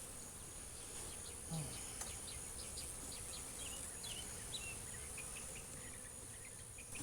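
Honeybees buzzing around an opened hive during an inspection, a steady hum with a few faint high chirps in the middle.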